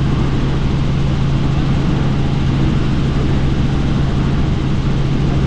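Helicopter in flight with the doors off: a steady drone with one constant low hum under a loud rush of wind and engine noise.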